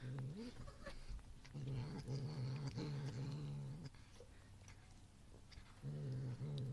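Domestic cat growling low over a piece of cheese as it eats, a food-guarding growl. It comes in three spells: a short one at the start, a long one of about two seconds from about a second and a half in, and another starting near the end.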